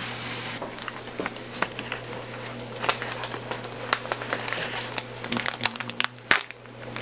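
Ground beef frying in a steel pot, with irregular crackling and sharp pops over a steady low hum.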